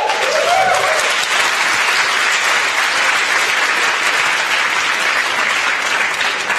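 Large audience applauding steadily, with a brief voice rising over the clapping about half a second in.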